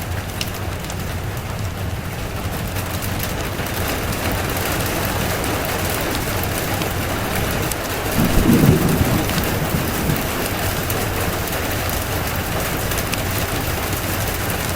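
Steady rain with a short, low roll of thunder about halfway through.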